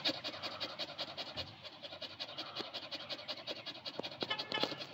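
A large dog panting hard and fast, about five or six raspy breaths a second, tongue hanging out: it is exhausted and hot after running after a ball.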